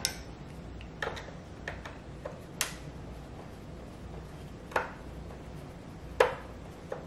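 Hand disassembly of a Roomba robot vacuum: plastic parts and a screwdriver click and tap, about six sharp, scattered clicks with the loudest about six seconds in.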